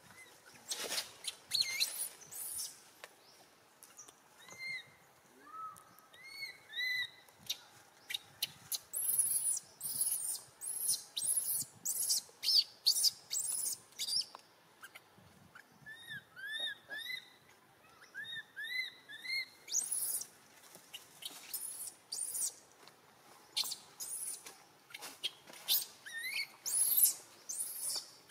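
Animal calls: many short, high-pitched chirps and squeaks come in clusters with brief pauses between them. They are mixed with runs of arched calls that rise and fall in pitch, about two to five in a row.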